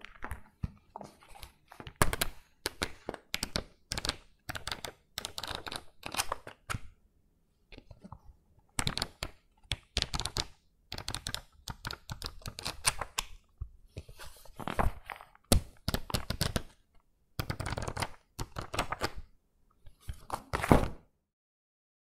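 Pages of a lined paper writing notebook flipped through quickly by hand: rapid runs of crisp paper flicks and flutters, coming in bursts with short pauses between them.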